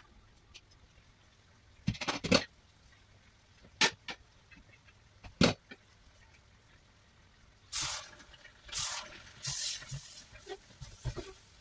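A few sharp knocks and clinks as the glass lid comes off a black wok and is set down. From about two thirds in, a spatula scrapes and tosses cauliflower florets and curry sauce in the wok in short bursts.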